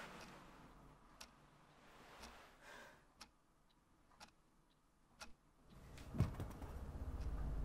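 A clock ticking about once a second, faint. From about six seconds in, a low rumble swells with a single deep thump, the loudest sound here.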